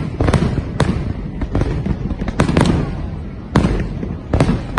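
Aerial fireworks going off: sharp bangs at irregular intervals, roughly every half second, over a continuous low rumble of further bursts.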